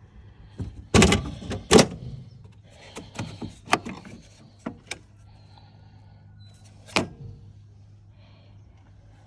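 Knocks and clicks of hands working on a diesel generator just before it is started: two loud knocks about a second in, several lighter clicks a couple of seconds later, and one more knock near the end, over a faint steady low hum.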